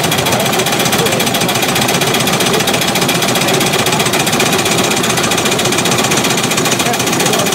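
Several hand-built scale model tractor engines running on compressed air together, a rapid, steady mechanical clatter of the little engines' strokes.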